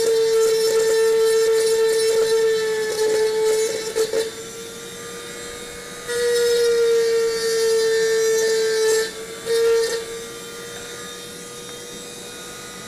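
A small high-speed electric motor whining at a steady pitch, like a handheld rotary tool. It runs loud, drops to a quieter level about four seconds in, comes back loud around six seconds, then falls quieter again after about nine seconds, its pitch sagging slightly just before each drop.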